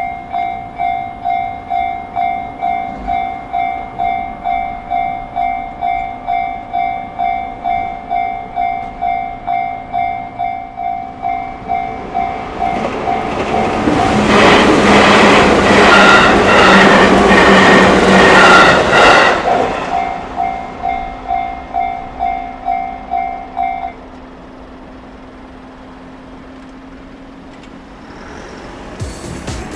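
Japanese railway level-crossing alarm bell ringing in an even repeating clang, about one and a half strikes a second. Near the middle a train passes through the crossing, rising to its loudest for about five seconds with the wheels clattering over the rail joints, then fading. The bell stops about four-fifths of the way through, leaving a low steady background hum.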